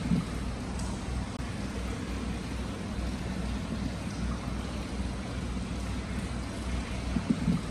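Free-flowing hot-spring water pouring into a round stone basin and spilling over, a steady splashing rush with a couple of louder splashes near the end.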